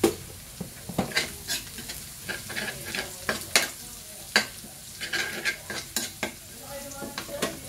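Minced garlic sizzling in hot oil in a steel wok, with a metal ladle scraping and clinking against the pan again and again as it is stirred.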